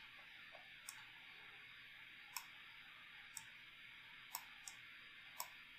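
About six sharp computer mouse clicks at irregular intervals over a faint steady hiss of room noise.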